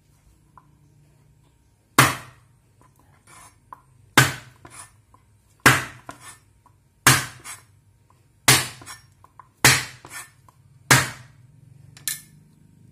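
The flat of a steel cleaver is slapped down on garlic cloves on a plastic cutting board to crush them. There are seven sharp smacks, one about every second and a half, each followed by a few lighter knocks, and a softer eighth near the end.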